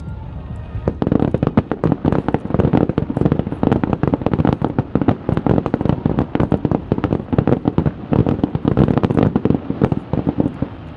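Fireworks going off in a dense rapid barrage of cracks and bangs. The barrage starts about a second in and cuts off near the end.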